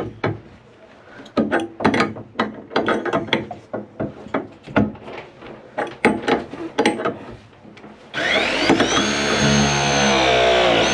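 ProPress crimping tool's motor running for almost three seconds, starting about eight seconds in, its whine sagging slightly in pitch as it presses a fitting onto the pipe. Before that, scattered knocks and clicks of handling the tool and pipe.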